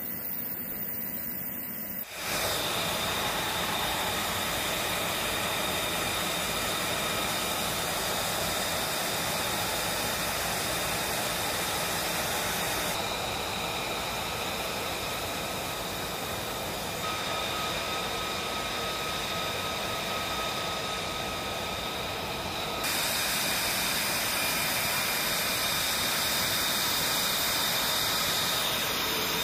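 Lockheed Martin F-35B jet engines running at taxi power: a steady high whine over a rushing hiss. The level jumps up about two seconds in, and the sound changes abruptly several more times.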